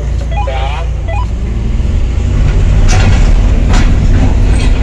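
Excavator's diesel engine running, heard from inside the operator's cab: a steady low drone that gets louder about two seconds in as the machine works. Two sharp knocks sound over it near the end.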